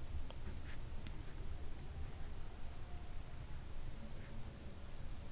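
A cricket chirping steadily in short high pulses, about six a second, with faint scratches of a pen writing on paper.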